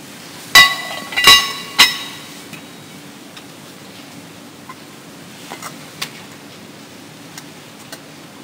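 Three sharp clinks of communion vessels knocked together on the altar in quick succession, each ringing briefly, followed by a few faint clicks.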